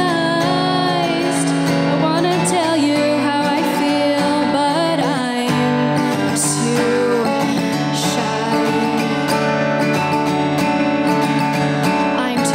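A woman singing while playing an acoustic guitar.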